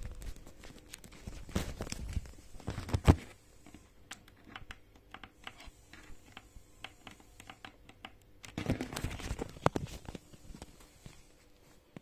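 Handling noises: rustling with a sharp knock about three seconds in, then scattered light clicks, then another stretch of rustling near the end.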